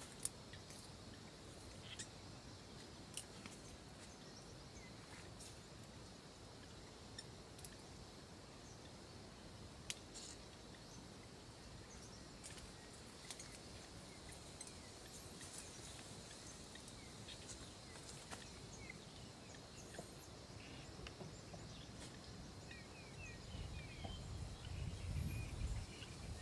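Faint rural outdoor ambience: a steady high hiss with scattered sharp clicks, a few short bird chirps near the end, and a low irregular rumble rising in the last few seconds.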